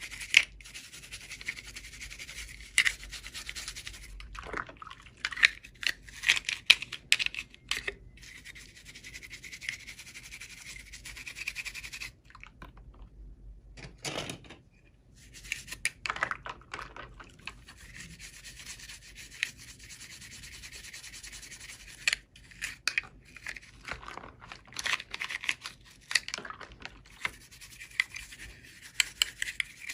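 Hands rubbing and handling plastic toy packaging, with scattered sharp clicks and crinkles over a steady hiss. It goes quiet for a couple of seconds about 12 seconds in.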